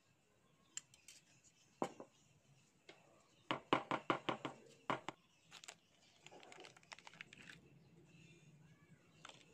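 Fibre seedling pot of potting mix knocked against a tabletop in a quick run of about eight knocks, roughly six a second, settling the soil. A few light clicks come before it, and a foil seed sachet crinkles later as it is opened.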